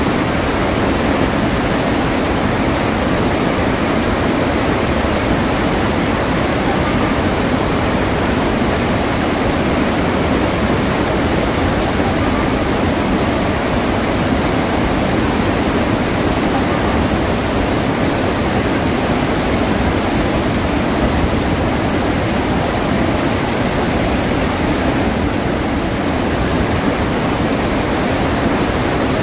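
Iguazu Falls: a large waterfall's falling water giving a deep, steady, unbroken rush.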